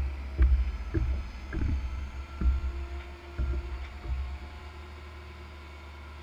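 Steel roll-off container being hoisted onto a roll-off truck: a string of heavy low thuds and clunks as it lifts and shifts, over the truck's engine running steadily. The thuds stop after about four seconds, leaving the steady low engine drone.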